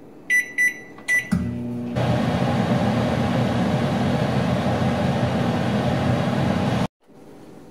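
Microwave oven: three short keypad beeps, then it starts up and runs with a steady hum while heating food, until the sound cuts off suddenly near the end.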